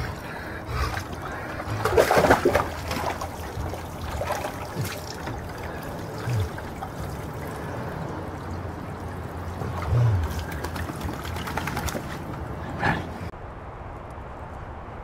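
Water sloshing, dribbling and splashing in a plastic wading pool as a chocolate Labrador wades in it, with a few louder splashes about two seconds in and again near ten seconds. Near the end it gives way to a quieter outdoor background.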